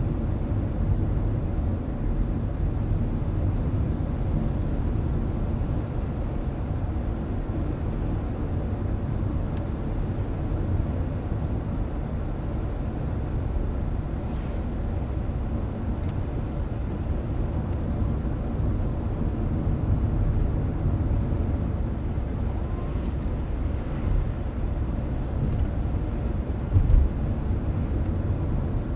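Car driving at a steady pace, heard from inside the cabin: an even, low rumble of tyres and engine on the road, with a few faint ticks and a brief bump near the end.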